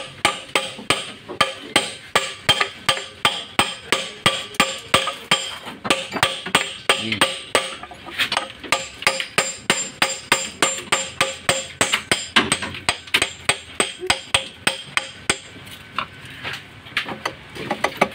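Steel hammer striking a socket extension bar set on a bolt of a seized rear drum-brake wheel cylinder, about three sharp ringing metal blows a second, to knock the bolt loose. The blows thin out near the end.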